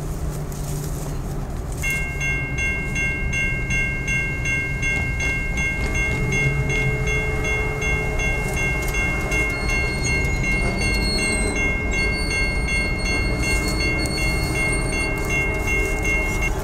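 Grade-crossing warning bell starts about two seconds in and rings steadily as the crossing activates for an approaching train, over a low rumble.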